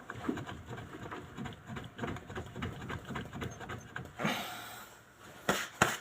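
Irregular light knocks and rattles from a raised car wheel and its suspension being rocked by hand, ending in two sharp, loud knocks: play in a worn front ball joint and strut.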